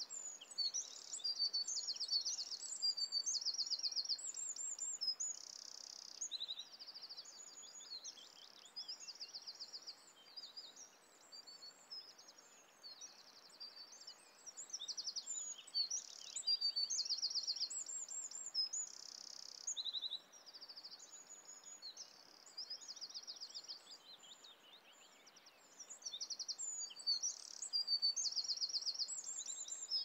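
Several small songbirds singing together: fast high trills and quick chirping notes overlapping without a break, over a faint steady hiss.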